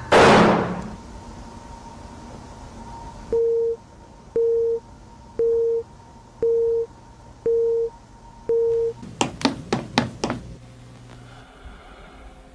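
A sudden loud burst of noise, then a telephone busy signal: six short beeps about one a second, ending in a quick run of clicks.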